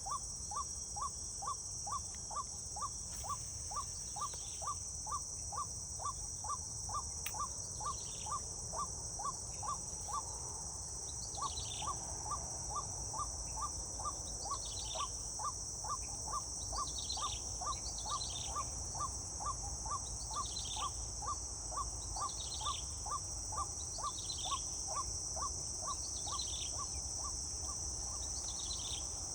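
Outdoor insect and bird chorus: a steady high insect drone, with a short piping note repeated about twice a second and, from a few seconds in, a falling call repeated every second or so.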